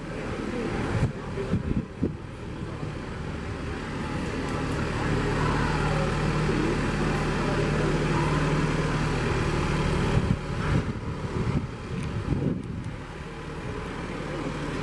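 John Deere utility tractor's diesel engine running steadily at low speed while it tows a utility trailer, with a few short knocks along the way.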